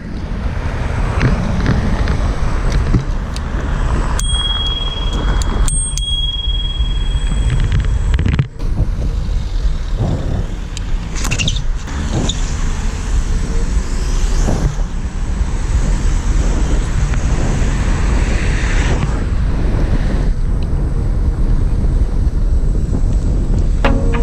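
Wind buffeting the microphone and road rumble while riding an electric kick scooter, with traffic passing. A thin, steady high whine sounds twice between about four and eight seconds in.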